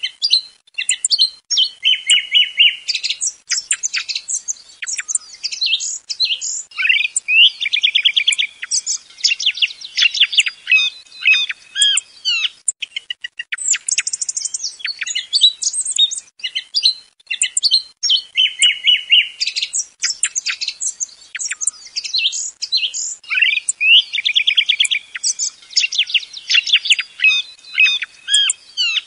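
Song thrush song played as a hunting lure call: loud, varied high phrases, many of them quick runs of the same note repeated, with short pauses between. The same stretch of song comes round again about every sixteen seconds.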